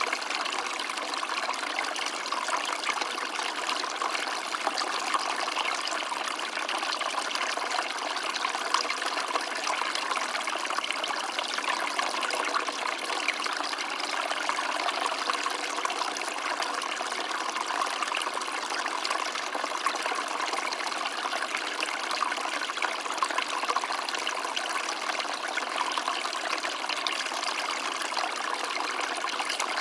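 A small stream of water running and trickling steadily, with a continuous bubbling splash and no change in level.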